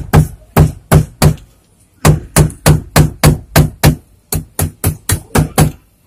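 A hammer driving small nails to pin wire mesh in place: a run of sharp, evenly paced blows, about three a second, with a short pause about a second and a half in.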